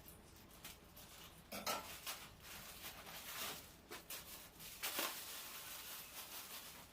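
Faint rustling and handling of parcel packaging, with scattered light clicks and taps.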